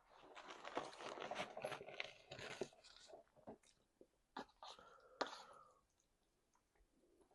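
Close-miked chewing of guacamole and meat: a dense run of wet, crackling mouth noise for about the first three seconds, then scattered lip smacks and clicks.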